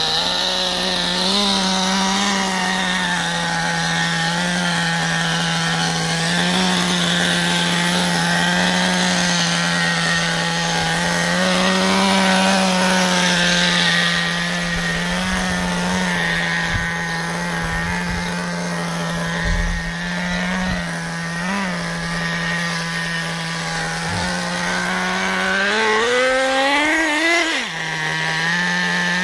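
Small nitro (glow-fuel) engine of an RC buggy running steadily at low throttle with small blips. Near the end it revs up in a rising whine, then drops back abruptly.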